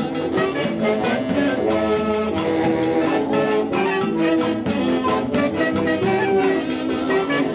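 Live orchestra playing an instrumental passage: horns carry a melody of held notes over a steady, evenly spaced percussion beat, with no singing.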